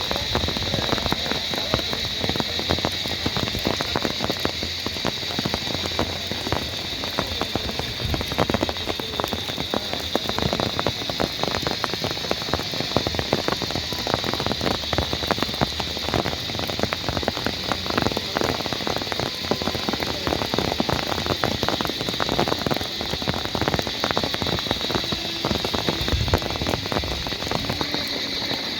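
Steady rain falling, a dense patter of drops hitting nearby surfaces.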